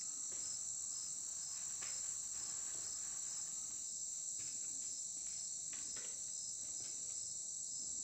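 Steady, high-pitched chorus of summer insects chirping in the surrounding foliage, with a faint even pulse under the continuous drone. A few faint knocks sound here and there.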